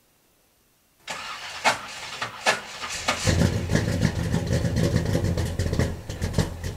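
Small-block Chevy V8 with HEI ignition cranking on the starter for about two seconds, then catching and running. This is the test start after the HEI distributor's power feed was rewired.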